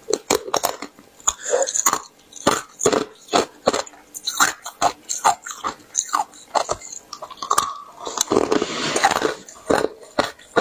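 Small pieces of pure frozen ice being bitten and chewed: sharp, irregular crunches, two or three a second, with a denser stretch of grinding crunches near the end.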